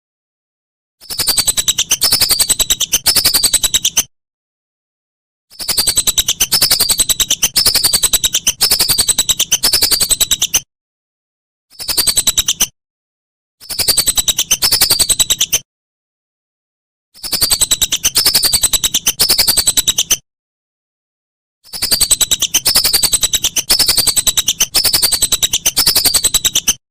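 Whistling duck (belibis) calling: bouts of shrill, falling whistled notes, about two a second. The bouts last one to five seconds and start and stop abruptly, with dead silence between them, as in an edited call track.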